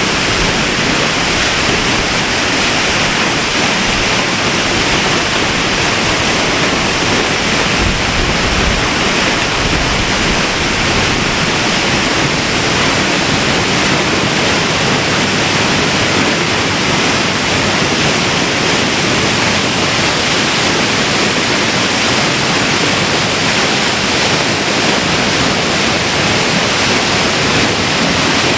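A roughly 100-foot waterfall in heavy flood after torrential rain, heard close up at its base where the water hits the bottom: a loud, steady rush of falling water and spray.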